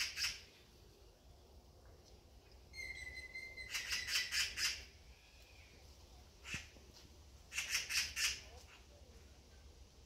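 A bird in the tree canopy calling loudly in short runs: one call at the start, a run of four or five calls from about three to five seconds in that begins with a short steady whistled note, a single call at about six and a half seconds, and another run of four around eight seconds.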